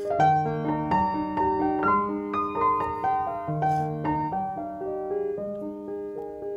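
Background piano music: a melody of struck notes over lower held notes.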